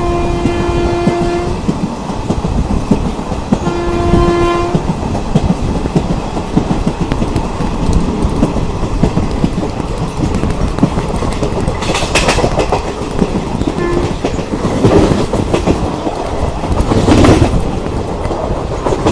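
Train horn held until about a second and a half in, then blown again for about a second around four seconds in. Under it and after it runs the rumble and clickety-clack of an Indian Railways ICF passenger coach's wheels on the track, with louder clattering passes in the second half.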